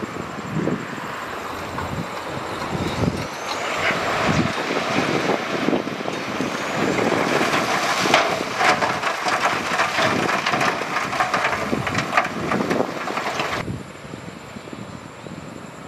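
Heavy earthmoving machinery at work on rock: engine noise with a dense clatter of knocks, busiest through the middle, which drops away suddenly near the end.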